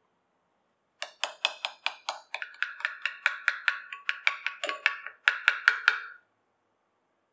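Metal spoon clinking against a glass bowl as it briskly stirs a runny spice mixture, about five quick clinks a second, with two short breaks.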